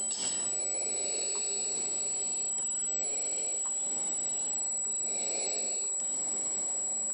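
Steady F-16 cockpit noise, the jet engine and rushing air on a gear-down low approach, heard over the cockpit intercom feed with a constant thin high whine.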